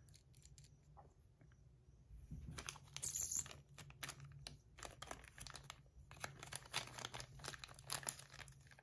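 Titanium fidget spinner with metal buttons being handled and spun: a quick, irregular run of small metallic clicks and taps that starts about two seconds in, with one louder hissy flick about three seconds in.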